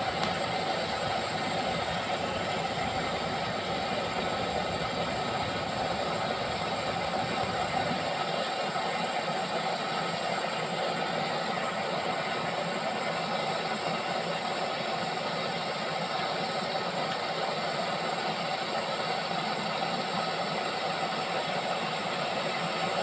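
Brazing torch flame hissing steadily while a copper pipe joint on a refrigerator condenser is brazed.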